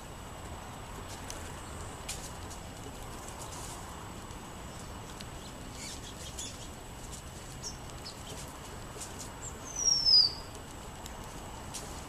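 A small songbird gives one thin, high call that slides downward in pitch, about ten seconds in, the loudest sound here. Before it come a few faint short chirps and soft scattered ticks, as of small birds pecking seed off a wooden table.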